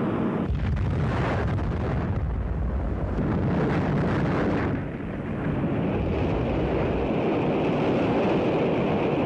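Atlas-Centaur rocket exploding in flight: a deep rumbling roar swells about half a second in and holds, eases briefly around five seconds, then runs on as a steady noisy roar.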